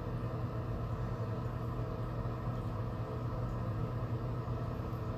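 A steady low machine hum with a faint hiss, with no knocks or other events.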